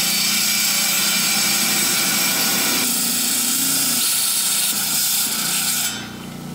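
A diamond-blade saw cutting through a small agatized coral geode: a steady motor hum under a loud grinding of blade on stone. The grinding stops about six seconds in as the cut finishes, and the motor keeps running.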